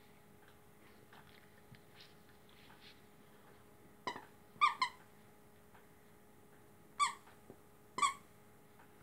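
A squeaker in a plush dog toy squeaking as a Great Dane puppy bites on it: five short, high squeaks, three within about a second some four seconds in, then two more a second apart near the end. Faint clicks of chewing come in the first few seconds.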